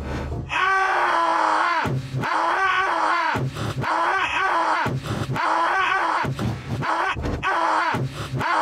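A cartoon man wailing and sobbing in long, drawn-out cries, one after another about every second and a half, each rising and then falling in pitch.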